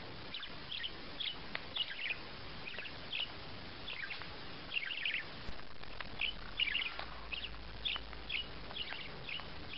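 Small parrot chirping repeatedly: short high chirps, roughly two a second, with no pause.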